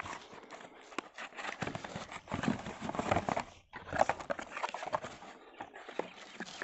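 Cardboard boxes and packaging being handled: irregular knocks, scrapes and rustles as a small carton is lifted out of a larger box and opened.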